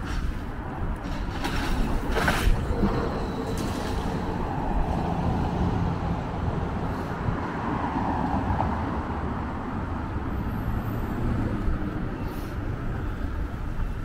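Downtown street traffic: passing cars and heavier vehicles running by with a steady low engine and tyre rumble, and a short hiss about two seconds in.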